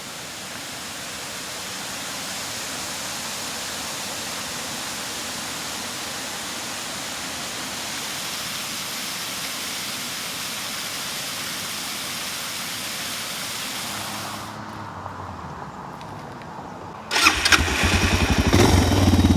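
Steady rushing water of a waterfall for most of the stretch. It dies down and dulls, and near the end a Suzuki DR650 single-cylinder motorcycle engine comes in loud, running with a rapid thumping pulse.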